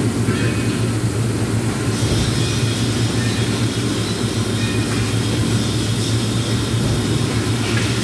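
Steady low hum over a constant rumble of running machinery.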